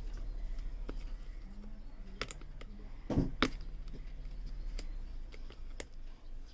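Scattered light clicks and taps of a smartwatch box being handled and worked open, with two louder knocks about three seconds in, over a steady low hum.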